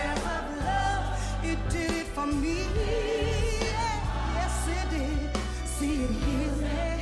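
Gospel song: a female lead vocalist singing with a wide vibrato over band accompaniment with long held bass notes.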